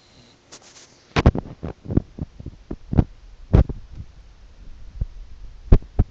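Sleeping Staffordshire bull terrier puppy snoring in short, irregular snorts and clicks, a quick cluster in the first half and two more near the end.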